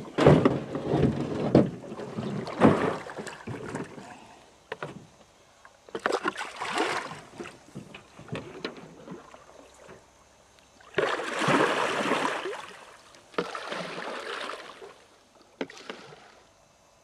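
Canoe paddle strokes splashing and swishing in lake water, in uneven bursts with quieter pauses between them, the strongest near the start and again about two-thirds of the way through.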